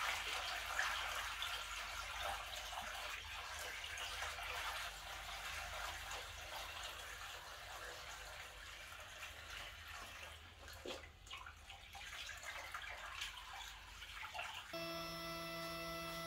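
Water poured from a bucket into the water tray of a CNC plasma cutting table, a steady rush of pouring water that eases off a little over time. Near the end it gives way to a steady electrical hum with several even tones.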